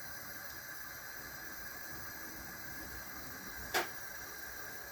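Faint steady hiss, with one short, quick sound near the end.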